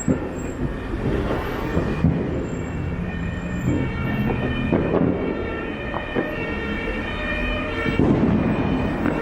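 Firecrackers banging now and then over a steady street din, with an emergency-vehicle siren sounding from about three seconds in.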